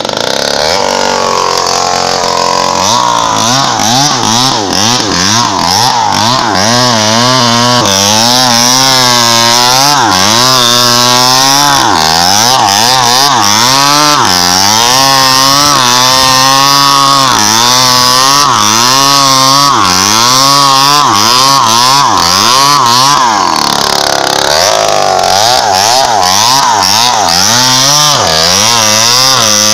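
Two-stroke chainsaw cutting into the base of a thick teak trunk, held near full throttle. Its engine pitch dips and recovers again and again as the chain bogs and frees in the cut. Near the end the engine sags briefly, then picks up and carries on cutting.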